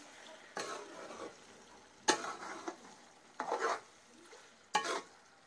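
Okra with onion and tomato frying in a pan, stirred with a spoon that scrapes the pan in four short strokes about a second and a half apart, over a faint sizzle.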